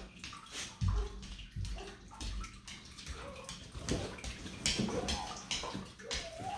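A dog sniffing and pushing its nose into cardboard boxes while searching for a hidden treat, with cardboard and paper rustling in irregular short bursts.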